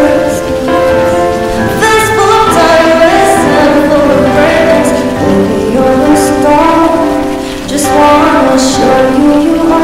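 A female voice singing a slow pop song over its backing music, with the sound of rain mixed in underneath and the song given the echo of an empty arena.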